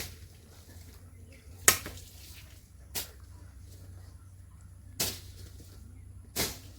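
A sword blade cutting grass by hand in sharp swishing strokes, five of them about every second and a half.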